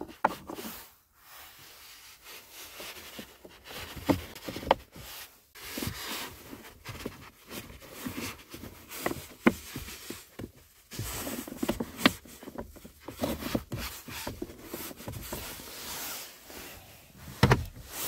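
Hands working the plastic glove box of a Kia K8: rubbing and rustling with scattered small clicks and knocks as its dial-type side stoppers are turned back into their holes. A louder thump comes near the end.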